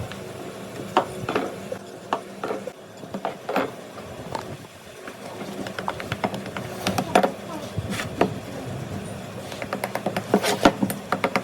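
Irregular taps, clicks and scrapes of hand work on a workbench, such as tools and parts being handled, over a steady low hum.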